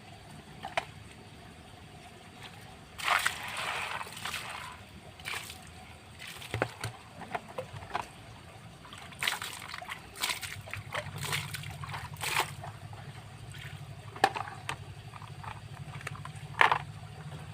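Water sloshing and splashing as a plastic toy car is washed by hand, with irregular splashes and knocks throughout.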